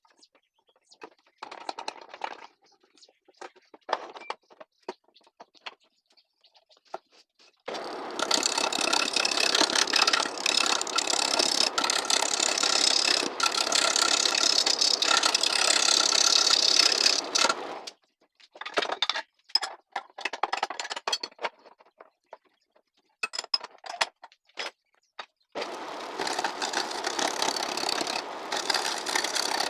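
Knocks and clicks of a wood log being fitted onto a homemade wood lathe, then the lathe running for about ten seconds, stopping, more knocks, and the lathe running again near the end.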